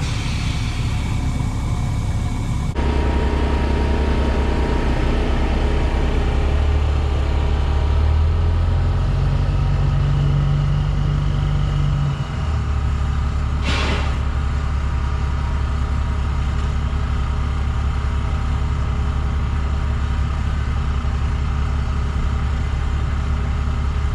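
Diesel semi truck engine running, its note shifting a few seconds in and again about halfway through, then holding steady. A short hiss of air about 14 seconds in.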